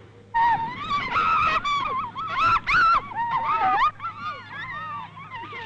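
A group of boys shouting and shrieking over one another, high-pitched cries that rise and fall, starting suddenly just after the start, over a steady low hum.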